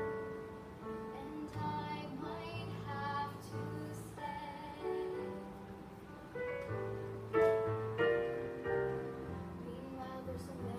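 A girl singing a song solo over a recorded backing track, holding long notes, some with a slight waver, above steady low chords.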